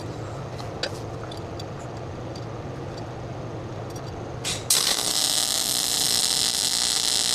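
Electric arc welding: after a brief first strike, the arc is struck again about halfway through and burns with a steady, loud hiss.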